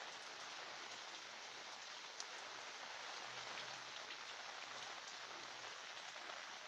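Steady rain falling on a roof and foliage, with scattered individual drops ticking close by and one sharper drop hit about two seconds in.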